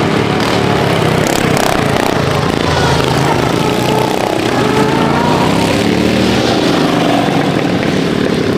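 Several racing ride-on lawnmower engines running together, their pitches rising and falling as they rev.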